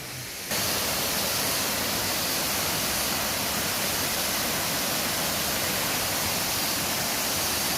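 Steady rush of falling water from a waterfall, starting abruptly about half a second in and holding an even level.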